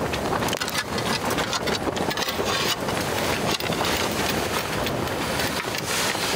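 Wind buffeting the microphone: a steady rushing rumble, broken by scattered rustles and knocks.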